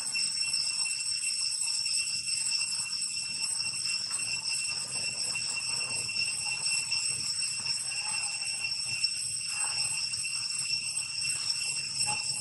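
Insects droning steadily in several high-pitched tones.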